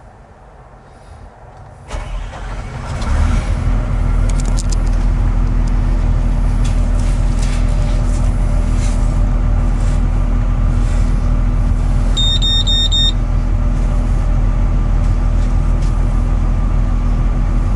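2008 Volvo EC210CL excavator's six-cylinder diesel engine starting about two seconds in, catching a second later and then idling steadily, heard from inside the cab. Past the middle, a warning buzzer beeps rapidly for about a second.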